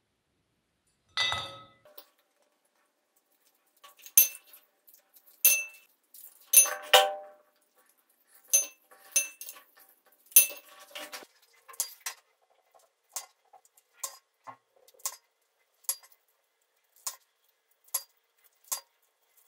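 Unwrapped chocolate eggs being set down one by one in a hard bowl, each landing with a short, sharp clink with a brief ring, irregular and about one a second. A fuller knock comes about a second in.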